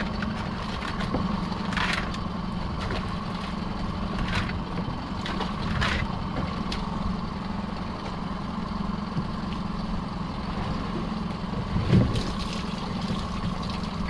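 Small fishing boat's engine idling steadily, with scattered knocks from lobster pots and rope being handled on deck and a heavier thump about twelve seconds in.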